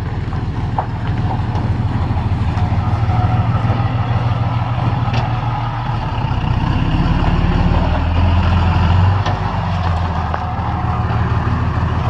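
Dodge Ram 5500's Cummins inline-six turbo-diesel pulling a gooseneck flatbed trailer past at low speed, a steady low drone that grows louder about seven to nine seconds in as the truck draws near.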